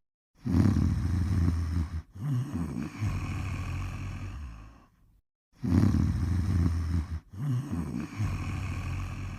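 Snoring in slow, regular breaths: two cycles about five seconds apart, each a loud low snore of about a second and a half followed by a longer breath that fades away.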